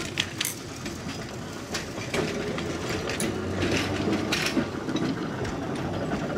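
Narrow-gauge electric tram running, a steady rumble with several sharp irregular clicks and knocks as its trolley pole passes under a junction in the overhead wire.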